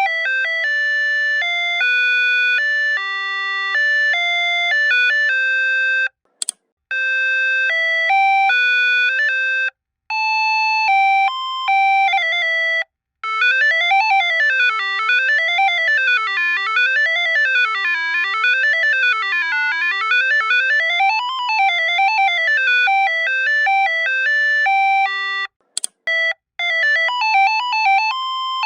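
Electronic buzzer of a Qlight signal light playing sample alarm tones. First comes a series of stepped electronic melody tunes, separated by short gaps and clicks. About halfway through, a warbling siren tone sweeps up and down for about twelve seconds. Near the end a melody tune starts again.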